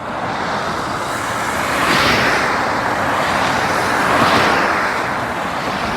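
Cars passing close by on the road, their tyres hissing. The noise swells twice, about two and four seconds in, as each goes past, then fades.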